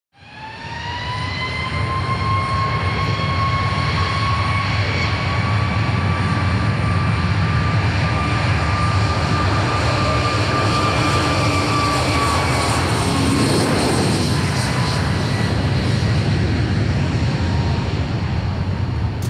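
Airbus A321XLR's twin turbofan jet engines running: a loud steady rush with a high whine. The whine rises slightly in pitch as the sound fades in and weakens in the last few seconds.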